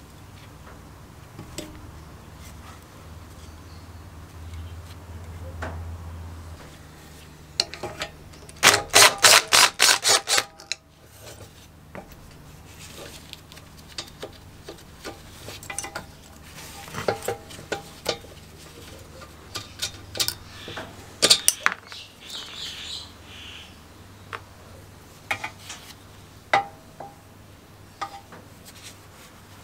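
Metal parts of a Robin EC10 two-stroke engine clinking and knocking as it is taken apart by hand. A quick run of loud rattling knocks, about five a second, comes around nine seconds in, followed by scattered lighter clinks.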